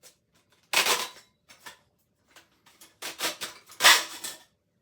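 Packaging and a flexible hot-air duct being handled, rustling and crinkling in two bursts, one about a second in and a longer one from about three to four and a half seconds in, with small clicks between.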